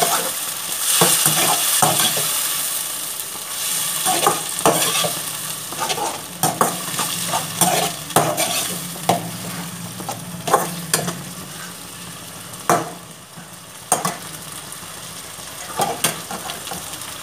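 Chopped tomatoes, onion and ginger sizzling in a kadhai while a metal slotted spoon stirs them, scraping and knocking against the pan. The sizzle is strongest in the first few seconds and then fades; the spoon's scrapes and clicks go on throughout.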